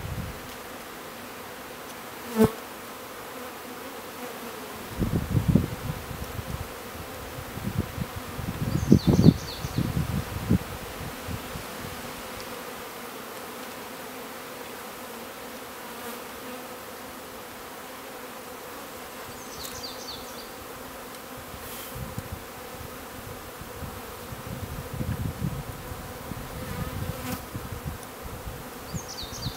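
Honeybees from a freshly installed package buzzing steadily around an open hive. A sharp knock comes about two seconds in, a few low thumps follow, and a few short high chirps are heard.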